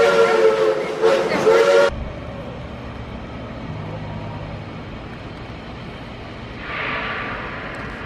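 Steam train's chime whistle blowing a loud chord of several tones over a hiss of steam, its pitch dipping briefly before it cuts off abruptly about two seconds in. After that a much quieter steady background with a faint low hum, and a short swell of noise near the end.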